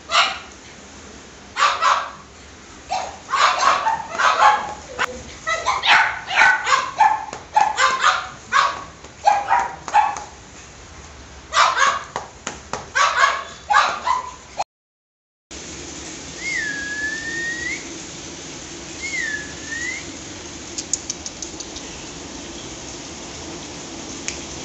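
Several puppies yapping and barking in quick, high, excited bursts for about the first fifteen seconds. After a short gap comes a steadier low hum with two short squeaky calls and a few faint clicks.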